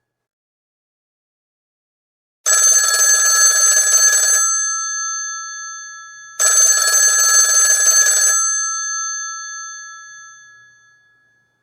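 Old rotary telephone's electromechanical bell ringing twice: two rattling rings of about two seconds each, the first about two and a half seconds in and the second about four seconds later, each leaving the bells sounding as they fade.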